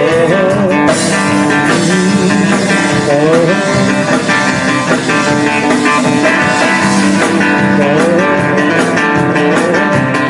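Band music led by guitar: an instrumental stretch of the song with no sung words.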